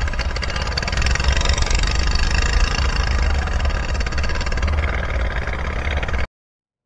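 Small boat's engine running steadily at cruising speed, with a dense rapid pulse; the sound cuts off abruptly about six seconds in.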